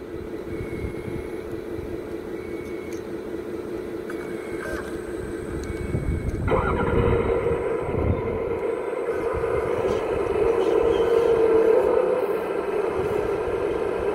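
Hydraulic pump of a radio-controlled hydraulic model machine whining steadily. About six and a half seconds in it steps up louder and fuller as a hydraulic function is worked. Faint short beeps come about once a second in the first half.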